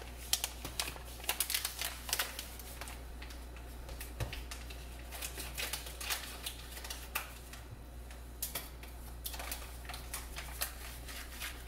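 Pot of chicken, water and rice mix coming up to a boil: irregular sharp popping clicks from bubbles bursting at the surface, in uneven clusters, over a steady low hum.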